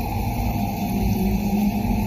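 Steady, low rumbling ambient drone of the 'space sounds' kind, with a faint held hum and no events or changes.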